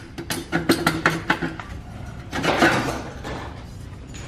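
Metal clinks and rattles as an intake pipe is worked loose from a 6.7 Powerstroke diesel engine's turbo plumbing: several quick clanks in the first second and a half, then a scraping rush about two and a half seconds in as it comes free.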